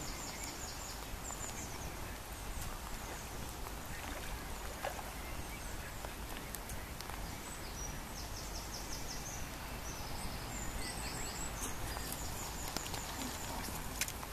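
Steady outdoor hiss with a small bird's high trilling calls, heard several times as quick rows of chirps, and a few faint clicks.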